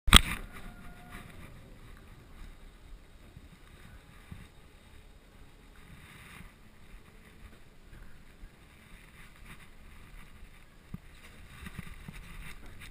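Gondola lift cabin running through the lift station: a low steady rumble with a few light knocks, after one loud knock right at the start.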